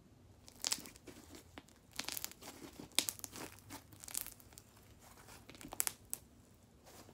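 Slime being squished and stretched by hand, crackling and popping in irregular bursts.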